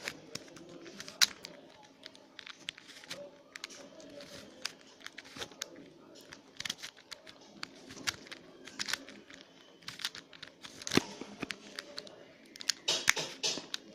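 Plastic 3x3 Rubik's Cube being twisted layer after layer through a solving sequence: a run of irregular clicks and clacks as the layers turn and snap into place.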